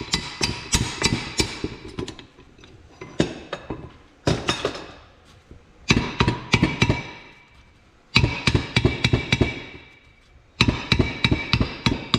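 Hammer hitting a steel gear puller set on the pinion yoke of a Clark tractor front-axle differential housing, to shock the yoke loose after the puller ran out of thread. The blows come in about six quick runs of four to five a second with short pauses between, each blow ringing metallically.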